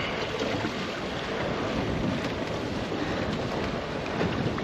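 Wind buffeting the microphone over the steady wash of choppy sea around a boat's hull.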